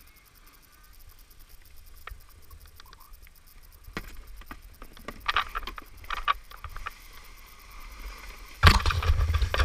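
Plastic sled sliding over packed snow: a low rumble with scratchy scraping and clicks from about four seconds in, and a loud rumbling burst near the end.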